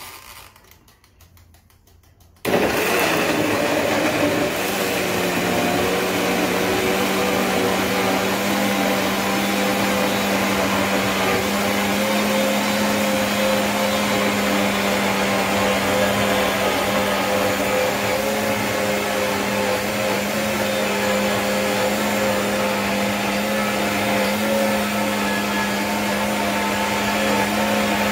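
Biolomix 2200 W high-speed blender switched on about two and a half seconds in, its motor then running steadily as it blends oats, banana and water into a smoothie. Its pitch creeps up a little partway through.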